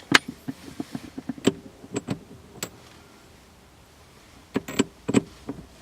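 Scattered clicks and light knocks of shift-knob hardware and parts being handled. The sharpest comes right at the start, and there is a quiet stretch of about a second and a half in the middle.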